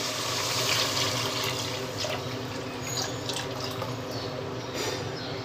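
Mutton stock (yakhni) poured from a pot into a pan of fried mutton and masala: a steady liquid pour, a little louder for the first two seconds.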